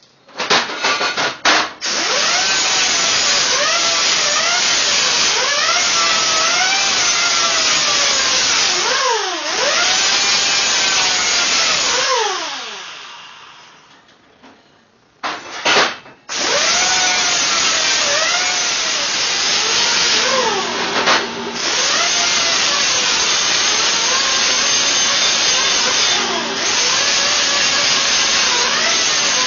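A power cutting tool, such as a cutoff wheel, cutting through steel header tubing; its motor pitch dips and recovers as the wheel bites into the metal. It winds down about twelve seconds in, restarts with a couple of short blips about three seconds later, then runs steadily again.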